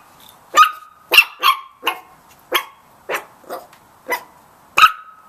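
Chihuahua puppies barking at a cat: about nine short, sharp, high yaps at uneven intervals.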